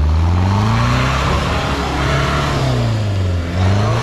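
4WD engine revving hard under load as the vehicle ploughs through deep mud, its pitch rising, wavering and dipping briefly near the end. A rushing noise of tyres churning mud swells through the middle.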